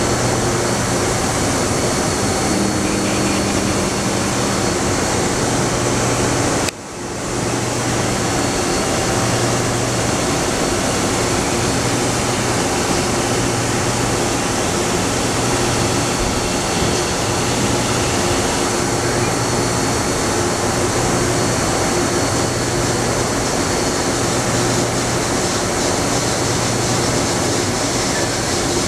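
Steady machine noise from an EDM DrillMate 430I CNC EDM drill during an automatic electrode change. A low hum cycles on and off every couple of seconds, and the sound drops out briefly about seven seconds in.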